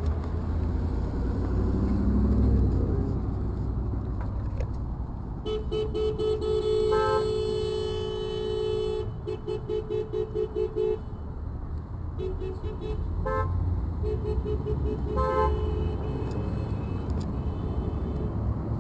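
Car horns honking from passing road traffic: one long blast of about three and a half seconds, then a quick run of short toots, about four a second, and more short honks after that, over a steady low traffic rumble. The honking is drivers answering a 'honk for justice' protest sign.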